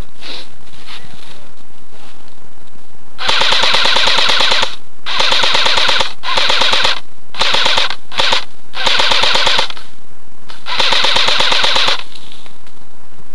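Airsoft rifle firing full-auto, in seven bursts of about half a second to a second and a half each with short pauses between. The first burst comes about three seconds in.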